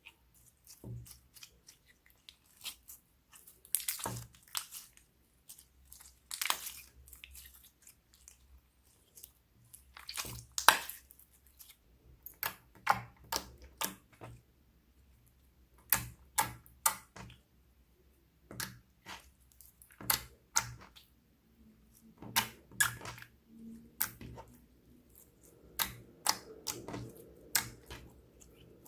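Slime being kneaded, squeezed and stretched by hand, giving clusters of sharp, sticky clicks and crackling pops with short pauses between handfuls.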